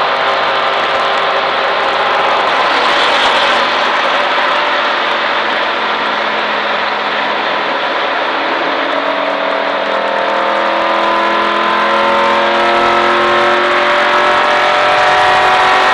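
Stock car V8 engine at racing speed, heard from inside the car. Its note holds steady through the first half, then climbs in pitch and grows a little louder as the car accelerates out of the turn.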